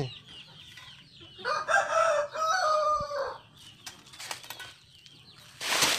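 A rooster crowing once, a long call of nearly two seconds starting about a second and a half in. A short burst of noise follows near the end.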